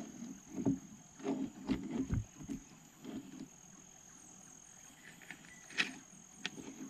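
Light knocks and bumps in a small wooden sampan, the sharpest a little before the end, over a steady high-pitched whine.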